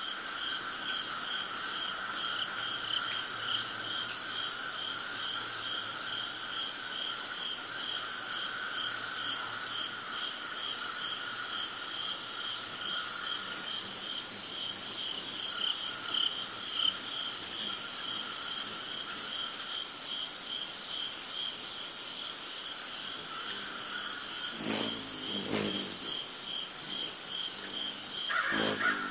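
Forest insect chorus: several continuous high-pitched trilling layers, one pulsing about three times a second. A few brief louder noises break in near the end.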